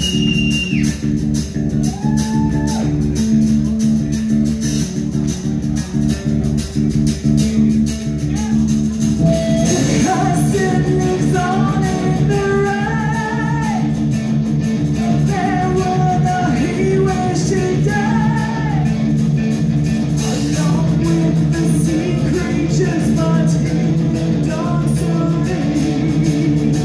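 Live heavy metal band playing a slow instrumental passage: held low bass notes throughout, with a slow electric guitar melody coming in about ten seconds in.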